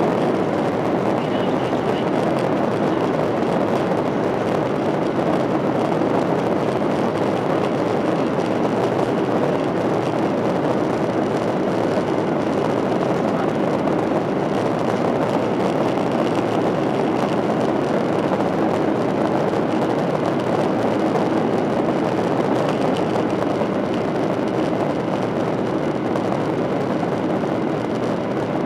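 Boeing 737-800 with CFM56-7B engines, a steady loud rush of engine and airflow noise with a faint constant hum underneath and no rise or fall in pitch.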